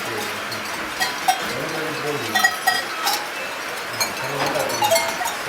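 A herd of goats with bells: metal bells clinking irregularly, with several short goat bleats rising and falling in pitch among them.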